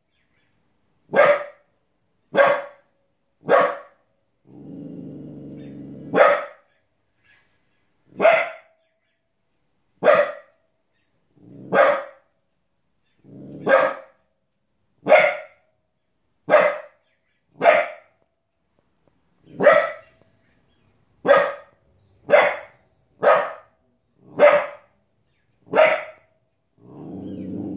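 Border Collie puppy barking repeatedly: about seventeen short, sharp single barks, one every one to two seconds. A low, steady sound runs for about two seconds after the fourth bark.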